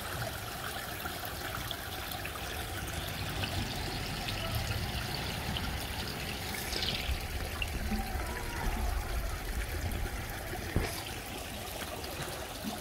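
Water trickling and splashing steadily where a pump-fed fountain churns the surface of a small pond.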